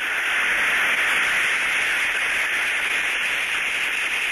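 Inverted bucket steam trap that has lost its prime, heard through an ultrasonic detector: a steady hiss of steam blowing straight through the trap. Underneath it the metal bucket dings faintly around inside, the sign that the trap is overloaded and can't catch up and cycle.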